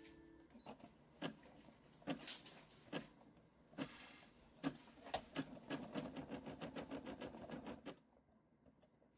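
Computerised embroidery machine started with its start/stop button, its needle stitching in uneven knocks at first and then in a fast, even run of stitches. The stitching drops to faint ticks about eight seconds in.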